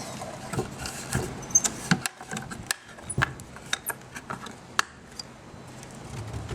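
A run of irregular sharp clicks and taps from hands handling a Makita DMR110 job-site radio and its controls, just after its 18-volt battery is clipped in, over a faint steady hum.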